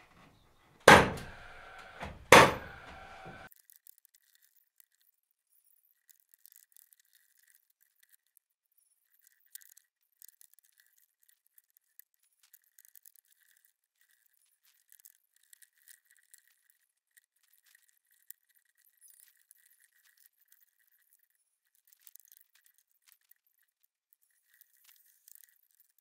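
Two loud knocks about a second and a half apart, each with a ringing tail, then near silence with faint scattered ticks.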